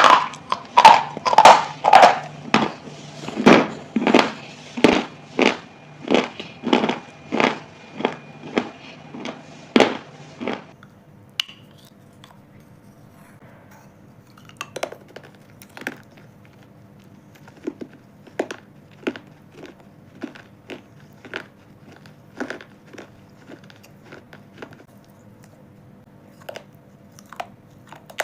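A person chewing something hard and crunchy close to the microphone: loud, regular crunches about two a second for the first ten seconds, then softer, scattered crunches.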